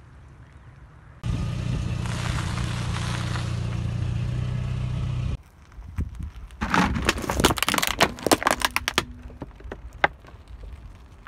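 A car runs with a steady rumble and low hum for about four seconds, stopping abruptly. Then a car tyre rolls onto two hollow plastic coin banks, and their plastic cracks and crunches in a quick run of sharp snaps as they are flattened.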